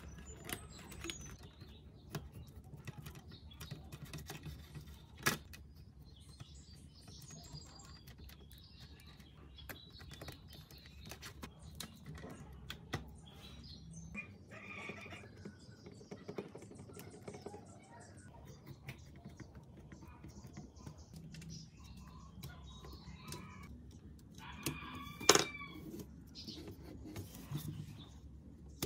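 Plastic parts of a cassette deck being handled and fitted together by hand: scattered light clicks, taps and rustles of plastic and ribbon cable, with one louder, slightly ringing click near the end.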